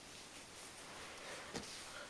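Faint room tone in a small room, with one faint click about one and a half seconds in.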